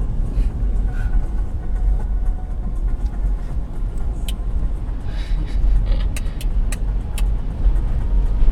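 Toyota 4Runner driving: a steady low rumble of engine and tyres, with scattered sharp ticks and rattles in the second half.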